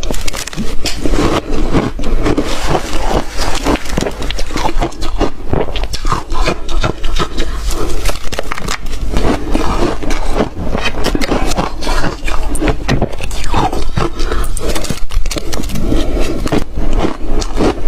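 Ice being crunched and chewed close to the microphone: a dense, irregular run of loud cracks and crackles with no pause.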